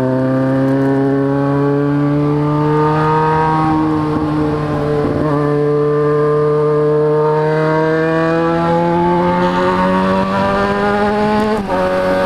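Motorcycle engine running under load, its pitch climbing slowly and steadily as the bike gathers speed. Near the end the pitch drops suddenly.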